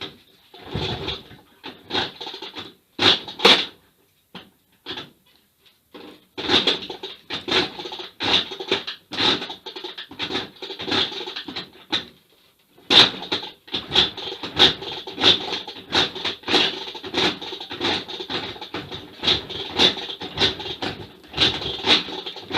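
IZh Planeta's single-cylinder two-stroke being kick-started over and over: quick clattering bursts from the kickstarter mechanism and the engine turning over, with two short pauses. The engine does not catch.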